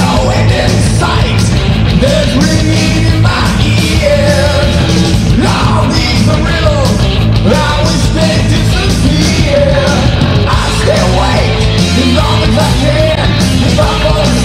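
Progressive/power metal band playing a loud, dense passage: distorted electric guitars, bass and drums, with a melodic lead line that bends in pitch.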